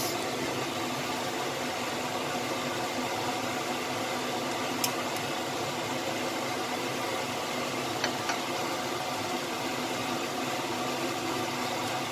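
Steady hiss with a faint hum from a wok of chicken wings, potatoes and carrots simmering in thick sauce on the stove, with a couple of faint pops from the bubbling sauce.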